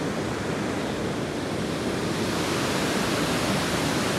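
Steady rush of a fast mountain river over a rocky bed, a constant noise that grows slightly louder toward the end.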